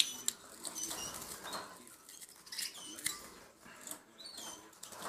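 Pet budgerigars chirping, short high calls coming every second or so, mixed with a few light clicks and knocks.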